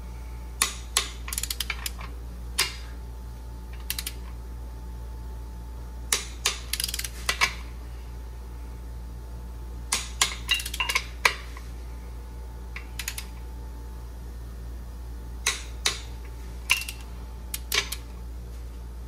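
Ratchet-head torque wrench being worked on crankshaft main cap bolts: short clusters of sharp metallic clicks and clinks every few seconds. A steady low hum runs underneath.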